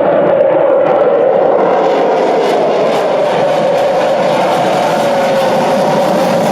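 Fighter jet's engine roaring loudly and steadily overhead, its tone sinking slightly over a few seconds.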